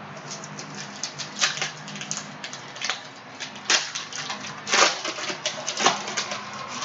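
A Prizm retail trading-card pack's plastic wrapper being crinkled and torn open: a run of irregular sharp crackles and clicks, the loudest about four times through the middle.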